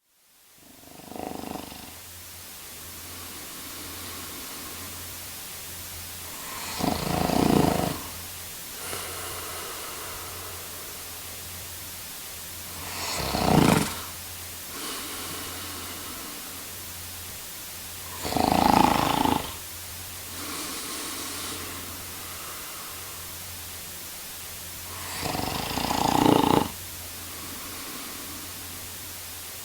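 A man snoring: five snores about every six seconds, the first one softer, with quieter breaths between them.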